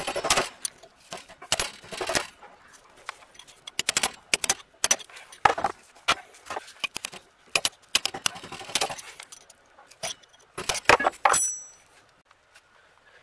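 A steel screwdriver clinking and scraping against the universal joint's bearing cap and yoke on a 1948 Chevrolet torque-tube drivetrain. The sound comes as irregular bursts of sharp metallic clicks and short scrapes.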